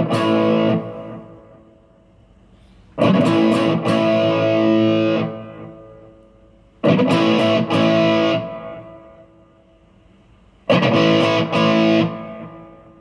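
Electric guitar through a NUX Plexi Crunch overdrive pedal: a crunchy distorted chord rings at the start, then three more chords are strummed about every four seconds, each left to ring and fade. The chords compare settings of the pedal's presence (treble) control.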